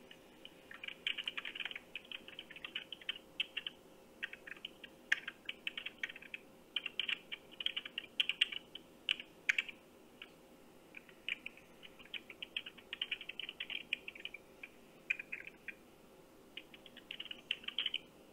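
Computer keyboard typing in quick bursts of keystrokes with short pauses between, heard thin and narrow through a phone's speakerphone.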